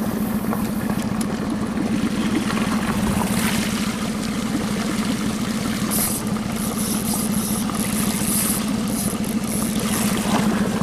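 Suzuki outboard motor on an inflatable boat running steadily at an even pitch.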